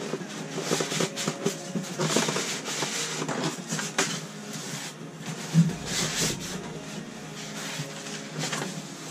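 Styrofoam packing insert rubbing and scraping against the cardboard box as it is worked loose and pulled out, in irregular strokes, with a dull knock about five and a half seconds in.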